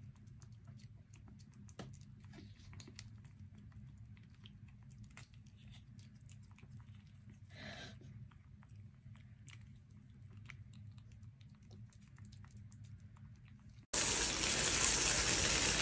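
Faint wet clicks of a kitten licking and chewing a squeeze-tube cat treat held in a hand, over a low hum. About fourteen seconds in, a handheld shower head starts spraying water with a loud, steady hiss.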